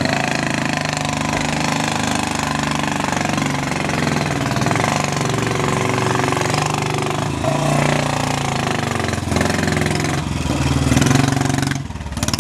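Royal Enfield single-cylinder motorcycle engine running under load as the bike is ridden up a flight of stone steps, its revs shifting a little.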